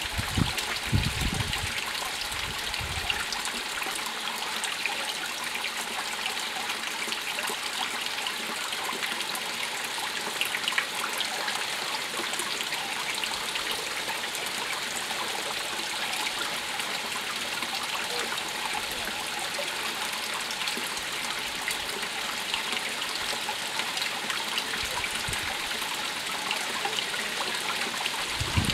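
Steady rush of running water, like a stream or water feature, with a few low bumps on the microphone near the start and near the end.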